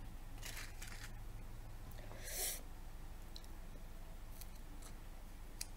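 Faint clicks and scrapes of a yellow plastic Kinder Surprise toy capsule being handled and pried at, with a short rustle about two seconds in.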